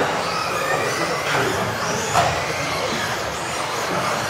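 Several 1:10 electric off-road RC buggies racing on an indoor track, their motors whining up and down in pitch as they accelerate and brake, over a steady rush of tyre and drivetrain noise. A sharp knock comes about two seconds in, like a car hitting something or landing.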